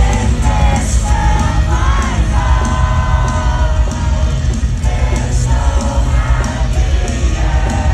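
Live rock song played loud over an arena PA and recorded from the audience, with heavy bass and drums and a vocal line that is partly sung and partly yelled.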